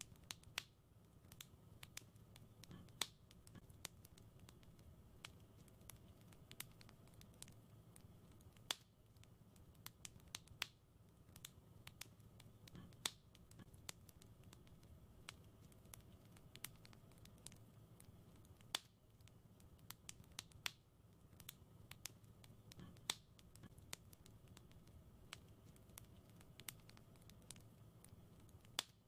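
Wood fire in a fireplace crackling softly: irregular sharp pops and ticks, a few of them louder, over a faint steady low rumble.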